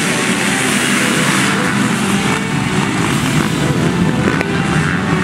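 A full pack of motocross bikes at high revs, accelerating hard off the start and racing past, many engines blending into one steady loud drone.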